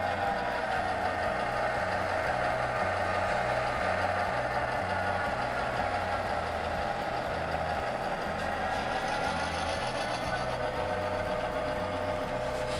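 HO-scale model diesel locomotive running, with a steady whine over a low, evenly repeating chug. A faint high hiss comes in about two-thirds of the way through.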